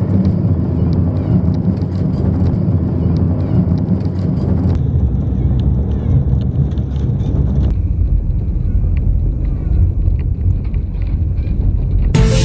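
Car driving at speed, heard from inside the cabin: steady low engine and road rumble with tyre noise. Music comes in right at the end.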